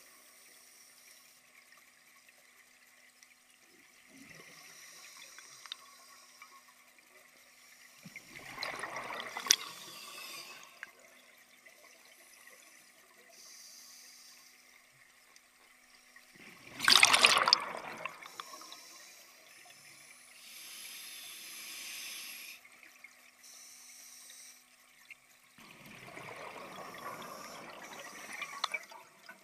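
A scuba diver's regulator heard underwater: three gurgling bursts of exhaled bubbles, roughly eight seconds apart, the middle one loudest, with a fainter hiss between them.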